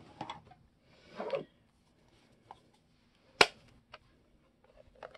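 A plastic ink pad being handled and opened: a soft brushing sound about a second in, then a single sharp click of the hinged lid snapping open about three and a half seconds in, followed by a few light taps near the end.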